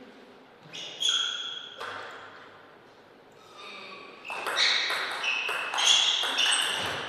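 Table tennis ball clicking off paddles and table. A couple of sharp clicks come about a second in; then from about four seconds there is a serve and a fast rally of crisp clicks, each with a brief ring.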